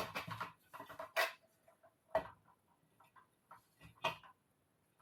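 Short, scattered clicks and light knocks of small metal heater parts being handled and fitted together, a few louder ones near the start, about two seconds in and about four seconds in.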